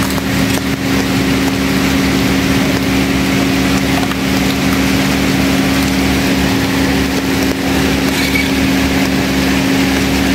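A steady motor hum that does not change, with the even hiss of rain falling over it.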